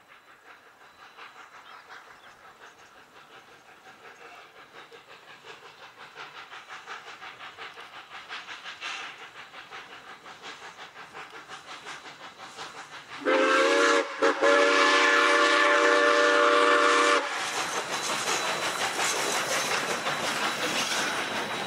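South Australian Railways Rx-class 4-6-0 steam locomotive approaching under steam, its exhaust beats growing louder. About 13 seconds in it sounds its steam whistle, several tones at once held about four seconds with a brief break. It then passes close, with rhythmic wheel clicks from the carriages and hissing steam.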